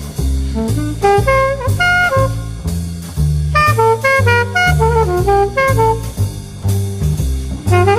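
Background jazz music: a saxophone melody over a stepping bass line and drum kit.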